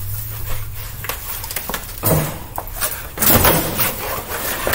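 Stiff, plastic-coated fabric cage liner rustling and flapping as it is unfolded and handled, in irregular noisy bursts with scattered knocks, heaviest in the second half.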